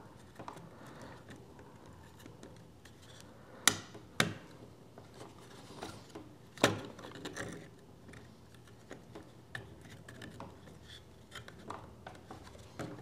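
3D-printed plastic LCD unit housing being eased back and forth onto a Prusa i3 MK3's frame: faint rubbing and handling noise, with a pair of sharp clicks about four seconds in and another near seven seconds in.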